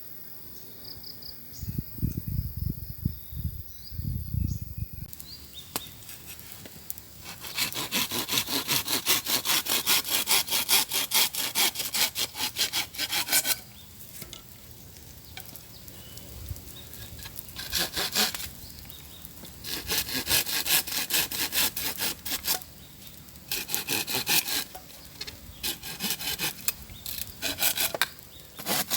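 Hand saw cutting through wood in quick back-and-forth strokes, several a second. It goes in runs with short pauses; the longest run is about six seconds in the middle. A few low thumps and rustles come in the first seconds.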